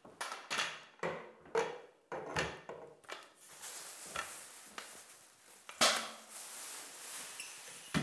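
Telescopic zip poles and their clip-on plastic pads being handled against plastic sheeting: a series of light clicks and knocks, with the sheet rustling, and one sharper knock near six seconds.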